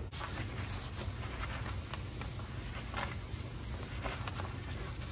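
A hand wiping the jacket of fiberglass pipe insulation, making a soft rubbing and scuffing sound with a few faint strokes. A steady low hum runs underneath.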